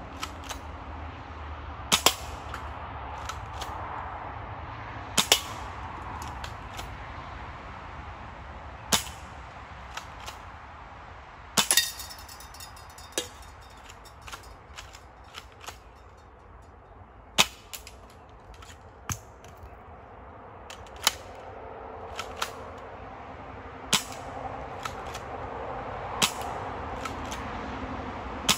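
Crosman PSM45 spring-powered BB pistol firing, about eight sharp shots spaced a few seconds apart, each followed by lighter clicks. One shot around the middle is followed by a short metallic ring.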